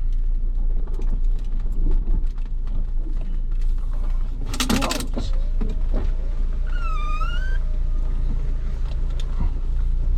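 Off-road 4x4 engine idling with a steady low rumble. About halfway there is a brief loud rattle, and a couple of seconds later a short squeal that dips in pitch and rises again.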